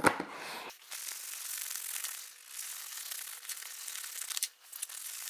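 A disinfecting wipe being pulled from its canister, then rubbed over a backpack's plasticky fabric shell to clean off scuff marks: a steady rubbing hiss that stops a little over four seconds in.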